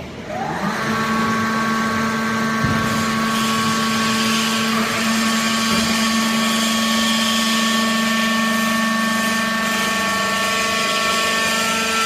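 Hydraulic power unit of a vertical baling press: its electric motor starts about half a second in with a short rising whine, then the motor and hydraulic pump run steadily with a constant whine.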